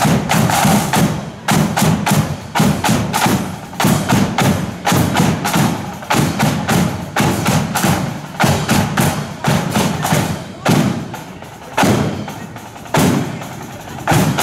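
A marching flute band's drums beating a steady march beat, about two strokes a second, with heavy bass drum and sharp snare hits. The strikes thin out over the last few seconds.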